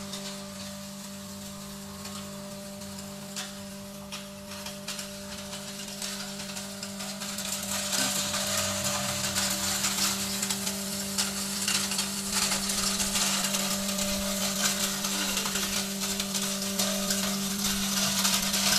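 Small electric-motor-driven hammer mill with four beaters running with a steady hum while grinding dried animal manure, with a dense crackling hiss of material being beaten and powder pouring out. The crackling grows louder about eight seconds in.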